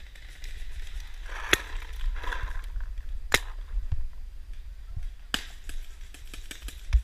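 Paintball markers firing during a game: three sharp pops about two seconds apart, then a quicker scatter of fainter pops near the end.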